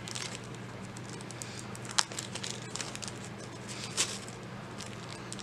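Small clear plastic zip bag crinkling in the fingers as a fine tangled chain is worked out of it, with light clicks throughout and two sharper ticks about two and four seconds in. A steady low hum runs underneath.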